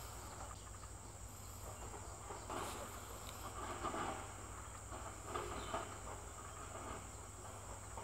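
Faint outdoor insect sound: a steady high-pitched insect song over a low steady hum, with soft scattered rustles.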